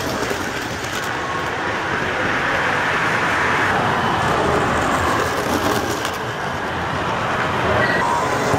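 Model train running on metal track: the wheels and motor of a streamlined passenger set rumble past, swelling and then easing off as it moves away.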